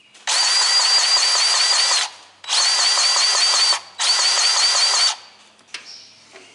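Battery-powered grease gun running in three bursts, the second and third shorter than the first, pumping grease into the baler's fittings. The motor's whine wavers evenly with each pump stroke.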